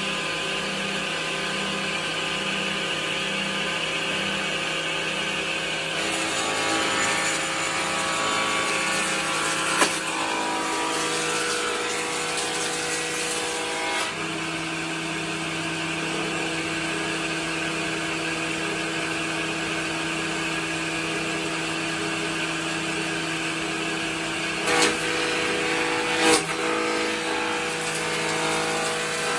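Stationary electric woodworking machine running steadily with a constant motor hum while a board is fed across its table. There is a sharp knock about ten seconds in and two more near the end.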